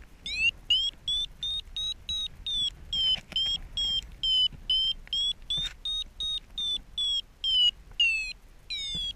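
Paragliding variometer beeping its climb tone, about three short beeps a second, rising in pitch over the first second and then holding high: the sign that the glider is climbing in a thermal. A low rush of wind runs underneath.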